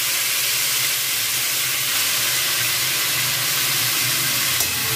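Freshly chopped fenugreek leaves sizzling in hot refined oil in a steel kadai, just dropped in: a steady, loud frying hiss.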